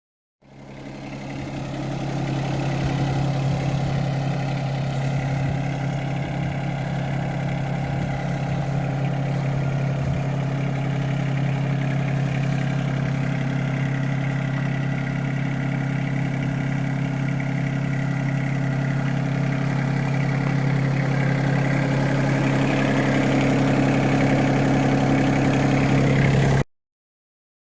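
Yanmar 424 compact tractor's diesel engine running at a steady speed, fading in at the start, a little louder over the last few seconds, then cutting off suddenly.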